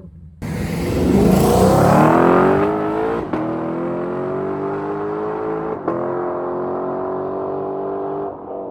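Lexus LC 500's 5.0-litre V8 through an aftermarket Power Craft exhaust, accelerating hard. The engine note climbs steeply and is cut twice by quick upshifts, each followed by another climb in pitch.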